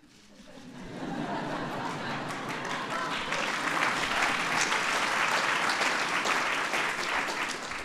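A large seated audience applauding, swelling over about the first second and then clapping steadily.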